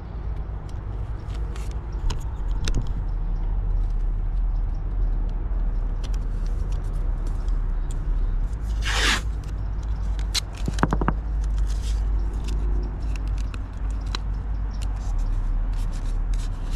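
A polyethylene backing plate scraping back and forth over 80-grit sandpaper taped to an aluminium mast, sanding the plate to the mast's curve, over a steady low rumble. A short, louder swish comes about halfway through.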